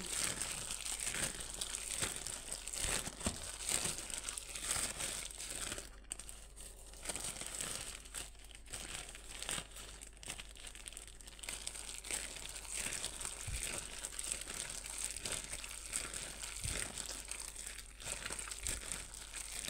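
A plastic bag worn as a glove crinkling and rustling continuously and irregularly as a hand kneads wet ground meat with vinegar marinade in a plastic bowl.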